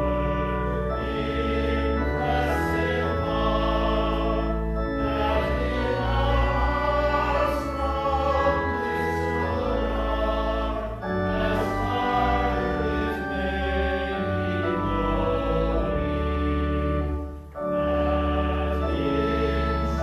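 A hymn sung by voices with organ accompaniment, in held chords over a steady bass, with a brief break between phrases about seventeen seconds in.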